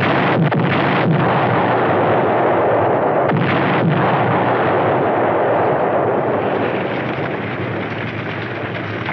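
Explosions: several sharp blasts, two in the first second and two more around three and a half seconds, over a continuous rumble of the burning building that slowly fades toward the end.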